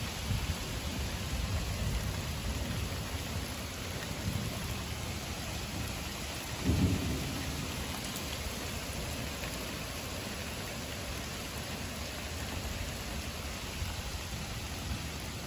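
Heavy rain pouring steadily on pavement and lawn, with low rumbles of thunder in the first few seconds and a louder, sudden crack of thunder about seven seconds in.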